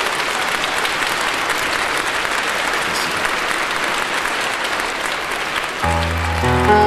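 Concert audience applauding steadily. Near the end the applause gives way to the start of a song's instrumental introduction: sustained chords over a low held bass note.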